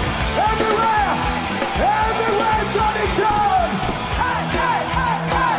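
Rock music with a yelled vocal.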